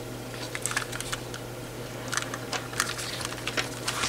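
Handling noise from cheap plastic over-ear headphones and their cable: irregular light clicks and taps, a few a second, as they are turned over in the hands and touch the desk, over a steady low hum.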